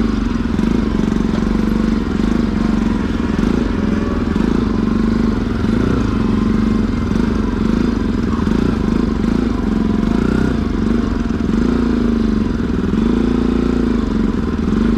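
Motorcycle engine running, its pitch rising and falling in small swells over a steady low rumble.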